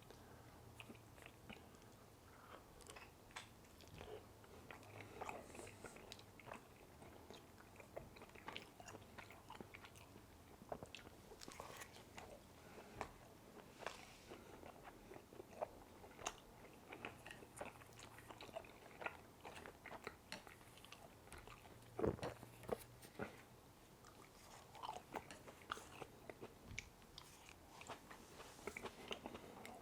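Close-miked eating sounds: soft wet chewing with irregular small clicks and crunches, the loudest about 22 seconds in.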